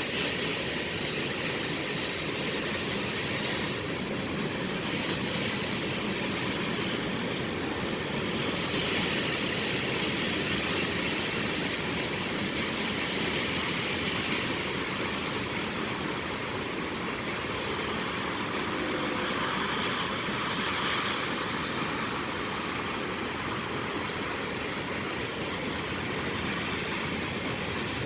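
Freight cars of a passing train rolling by on the rails: a steady, continuous noise of wheels on track that swells and eases a little.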